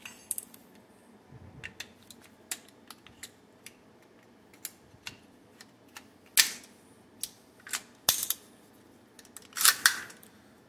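Scattered sharp metallic clicks and clacks of AR-15 rifle parts being fitted and worked by hand, with the loudest clack about six seconds in and a quick cluster of clacks near the end.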